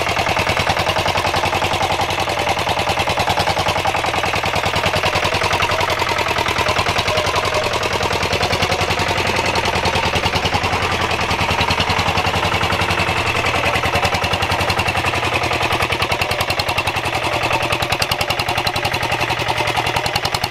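Lombardini LDA 820 single-cylinder diesel engine of a Goldoni tractor running steadily, its firing strokes coming as a rapid, even knocking pulse.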